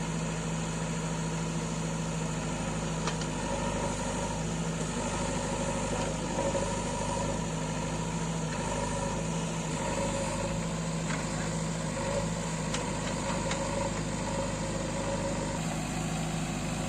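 JCB 3DX backhoe loader's diesel engine running steadily, with a few faint clicks.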